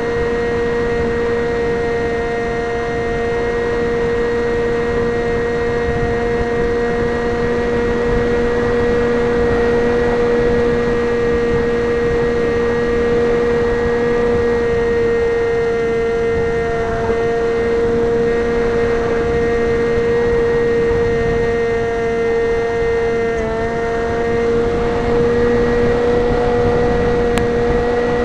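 Multiplex EasyStar RC plane's electric motor and pusher propeller running at a steady pitch, heard from a camera on board, with wind rushing over the microphone. The pitch dips briefly about 23 seconds in.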